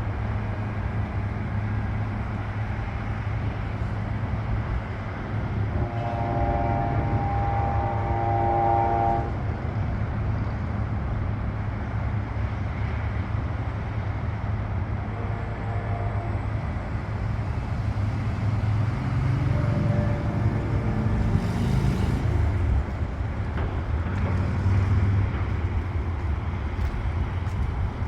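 Steady low rumble of passing vehicles, with a held pitched tone for about three seconds starting about six seconds in.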